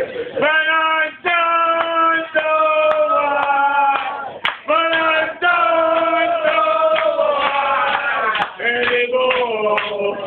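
A man singing unaccompanied, holding long drawn-out notes in phrases with short breaks between them.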